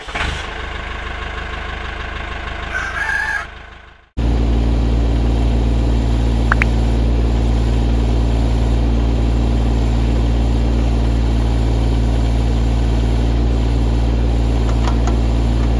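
A chicken calls briefly. About four seconds in, an LS compact tractor's diesel engine takes over, running steadily and loudly while its backhoe digs soil.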